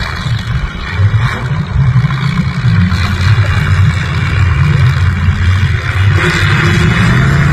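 Several V8 stock car engines revving unevenly as a race gets under way, growing louder about a second in and again toward the end.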